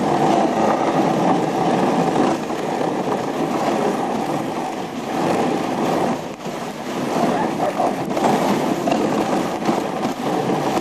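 Dog sled moving fast over packed snow: a steady rushing scrape from the sled's runners on the trail, dipping briefly about six seconds in.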